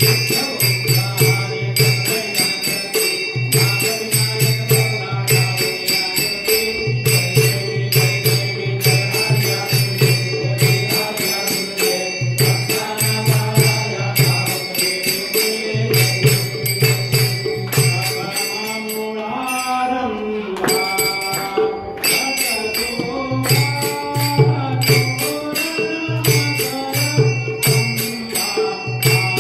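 Temple aarti music: bells and other percussion ringing and clattering in a fast, continuous rhythm over a low beat that pulses on and off, with a melody on top. Near the middle the percussion thins for a moment while the melody glides up and down.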